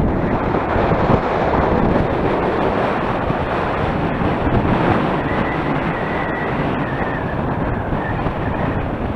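Strong wind buffeting the microphone, a constant loud rumbling rush. A faint thin high whistle comes through for a few seconds in the second half.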